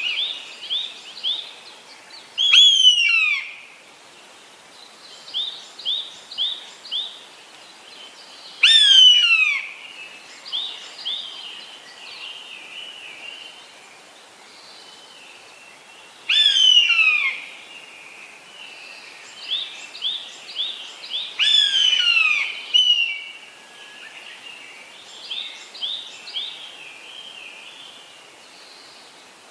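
Eastern buzzard giving its mewing call: four loud, drawn-out calls of about a second each, every one falling in pitch, spaced several seconds apart. Between them come quieter runs of short, quickly repeated high notes.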